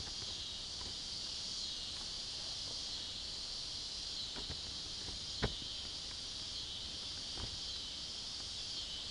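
Steady high-pitched insect chorus, with a few faint clicks and knocks, the sharpest about five and a half seconds in.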